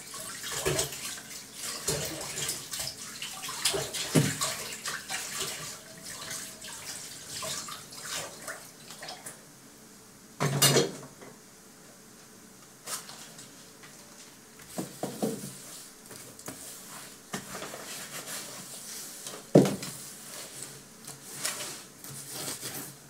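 Dishes being washed by hand at a kitchen sink. Water runs and splashes with many small clinks of utensils through the first part, then there are scattered clatters, with two louder knocks about ten and twenty seconds in.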